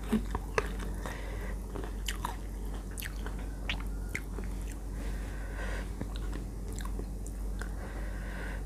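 Close-up chewing and crunching of crisp slices of unripe green mango, with irregular sharp crunchy clicks, the loudest just after the start and sparser later on.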